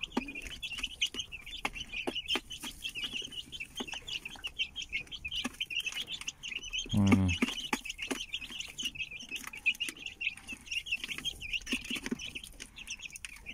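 Chicks peeping constantly in a dense run of short high-pitched chirps around their mother hen, with light clicks of pecking and one short, lower falling call about seven seconds in.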